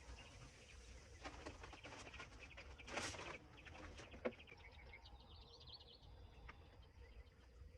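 Faint birds chirping in short repeated calls. About three seconds in there is a brief hiss, and a sharp click follows a second later.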